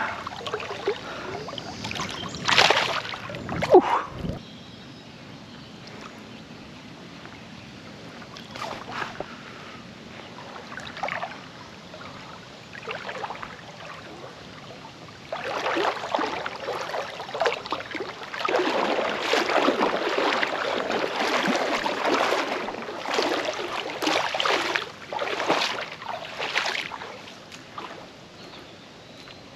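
River water splashing and sloshing: a couple of sharp splashes about three seconds in, then a long run of repeated sloshing through the second half.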